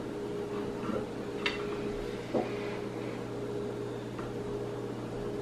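Quiet indoor room tone: a steady low electrical or appliance hum, with a faint tick about a second and a half in and a soft tap about a second later.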